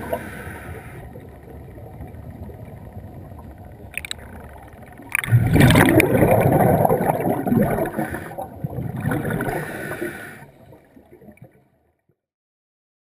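Muffled gurgling and rumbling water noise picked up by a camera underwater, with a couple of knocks about four and five seconds in. It swells louder about five seconds in, then fades and cuts to silence near the end.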